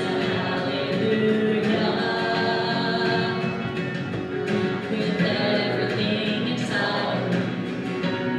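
A woman singing a contemporary worship song, accompanied by guitar.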